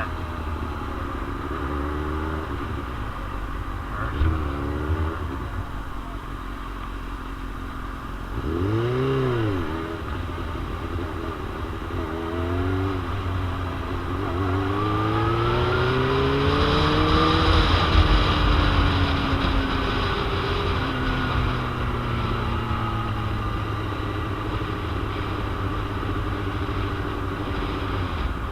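2001 Suzuki GSX-R750's inline-four engine revving up and down in several short swells, then accelerating in one long rise in pitch around the middle and easing off slowly. Heavy wind noise rumbles on the microphone underneath.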